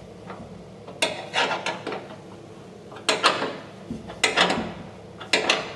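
Hand tools working a rusty fender bolt: short bursts of metallic clicking and clatter, four of them about a second apart.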